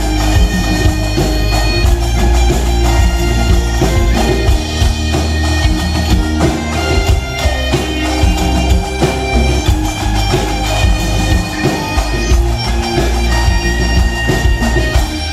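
A group of Galician bagpipes (gaitas) playing a folk tune together, backed by a band with electric guitar, keyboard, drums and a heavy bass line.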